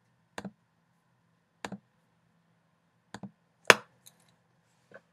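Computer mouse clicks: a handful of sharp clicks a second or so apart, some in quick pairs, the loudest about three and a half seconds in.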